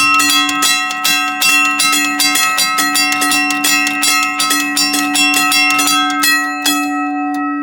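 Mechanical railroad crossing bell ringing loudly, its clapper striking the gong in quick, even strokes, about five a second. The striking stops about seven seconds in, and the gong hums on.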